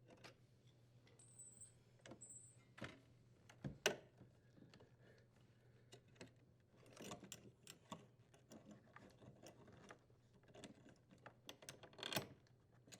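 Faint clicks and light metallic rattling of small parts being handled while the strain relief nut is unthreaded and the strain relief pulled from the dishwasher's junction box, with a sharper click about four seconds in and a few more near the end.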